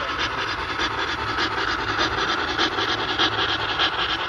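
Model trains running on a layout: a steady rushing rumble with a low hum and a rapid run of light clicks.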